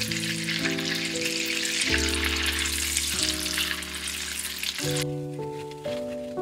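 Butter sizzling and crackling in a pan as it melts and foams, stirred toward brown butter. The sizzle cuts off suddenly about five seconds in, and soft background music with held notes plays underneath.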